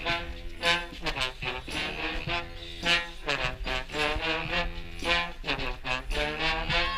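Street brass band playing a tune: trombones, trumpets and saxophones over a drum beat.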